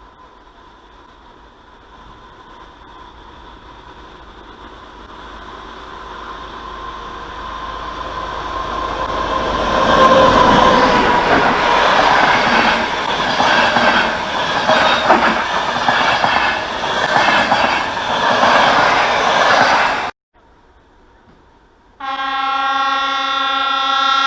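A train approaching and passing, growing louder over about ten seconds into a loud rumble with wheels clattering over rail joints, cut off abruptly; about two seconds later a train horn sounds one long steady blast.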